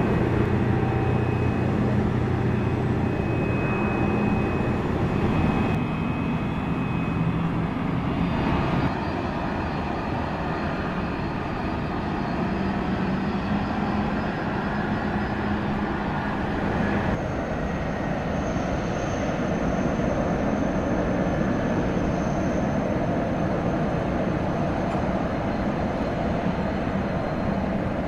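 Jet airliner engines at taxi power: a steady rumble with a high whine over it. The sound changes abruptly a few times, about six, nine and seventeen seconds in.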